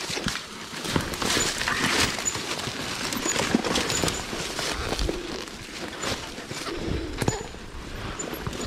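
Dry cut branches and brush crackling and snapping under a dirt bike's tyres and scraping along the bike as it rolls down a littered trail, with many irregular sharp clicks and knocks.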